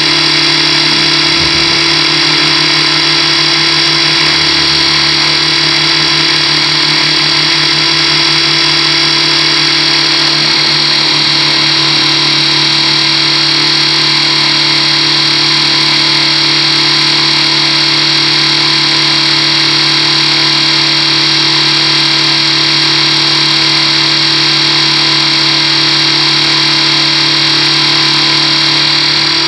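Align T-Rex 600 Pro radio-controlled helicopter in flight, heard from a camera mounted on the helicopter itself: its drivetrain and rotor make a loud, steady whine with a lower hum beneath.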